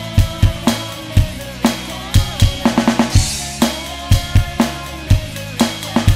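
Alesis Nitro Mesh electronic drum kit played in a steady rock beat of kick and snare over a backing track with bass. About two and a half seconds in comes a quick snare fill, ending on a cymbal crash.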